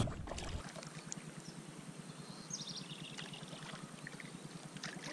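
Faint water lapping against a kayak hull, with a few light knocks and a brief high chirp near the middle.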